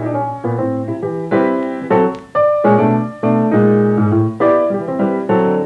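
Background music: piano playing a string of chords, each struck note ringing on.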